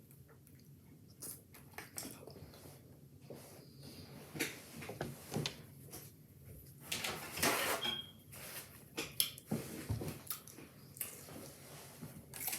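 Faint, scattered chewing and lip-smacking of someone eating a shortcake taco, with small mouth clicks and a slightly longer bout about seven seconds in.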